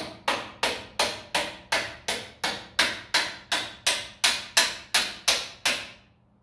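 Hammer striking repeatedly in a steady rhythm of about three evenly spaced blows a second, each with a short ring; the blows stop near the end.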